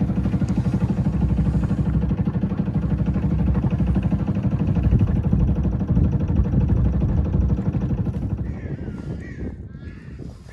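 Small sailing boat's engine running steadily with a fast, even throb. It fades away near the end, where geese begin honking.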